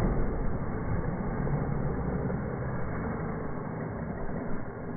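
Slowed-down sound of an RC car in mid-air after a ramp jump: a low, steady noise that slowly fades.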